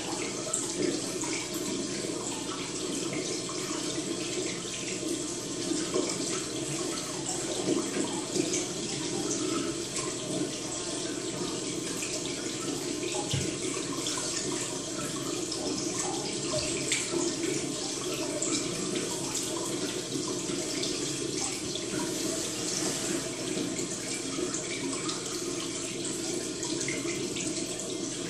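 Steady running, trickling water, even and unbroken, with fine crackles throughout.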